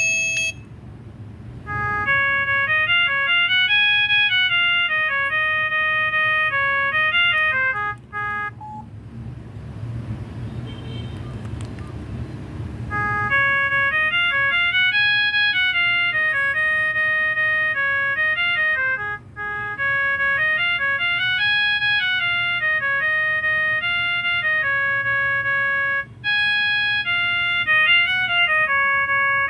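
Viettel V6217 phone playing a ringtone: a simple electronic melody of clean beeping notes that repeats in short loops. It breaks off about eight seconds in, leaving a few seconds of low hiss, then starts again about thirteen seconds in and keeps looping.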